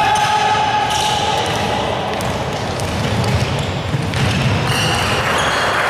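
Basketball game sounds in a large echoing gym: the ball bouncing on the hardwood court and sneakers squeaking. A held tone lasts about a second and a half at the start.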